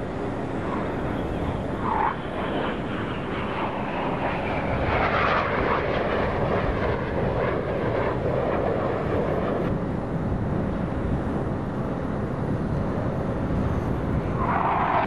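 Jet noise from BAE Hawk trainers, each with a single Rolls-Royce Turbomeca Adour turbofan, passing overhead. It is a steady rushing roar that swells about five seconds in and eases slightly after ten.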